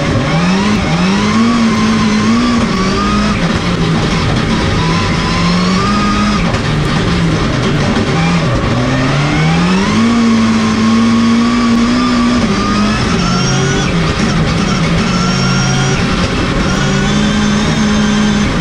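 Onboard sound of a rallycross car driven at speed on a circuit. Its drive note and a high whine rise and fall together with speed: they climb sharply about a second in, dip, climb again about nine seconds in, hold, then ease off.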